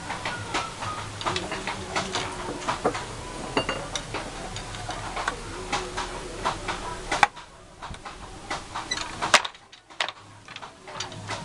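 Wooden handloom being worked by hand: rapid, rhythmic clacking and knocking of its wooden parts. The clacking stops about seven seconds in, and after that there are only a couple of single loud knocks.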